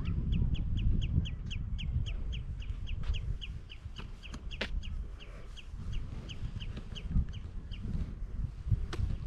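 A bird calling a long run of short, sharp, high notes, about four a second, that stops about eight seconds in. Wind buffets the microphone underneath.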